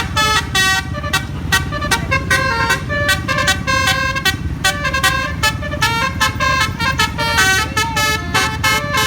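Bus musical 'basuri' telolet air horn playing a quick tune of short stepped notes without a break, over the steady rumble of the bus's engine.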